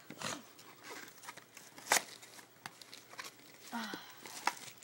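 Hands handling camcorder packaging: a few sharp clicks and knocks, the loudest about two seconds in, with paper and plastic wrapping rustling and crinkling.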